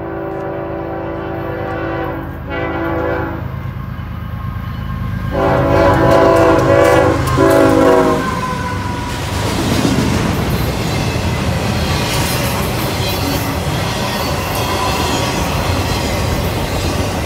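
CSX freight locomotive horn sounding four blasts, a long and a short, then after a pause another long and short that is loudest as the locomotives pass close, several tones at once. Then the double-stack intermodal cars roll by with a steady rumble and clicking wheels.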